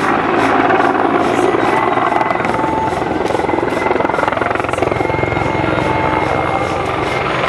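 Mil Mi-35 attack helicopter flying a display pass, its main rotor and twin turboshaft engines giving a steady, dense rumble with a thin high whine over it.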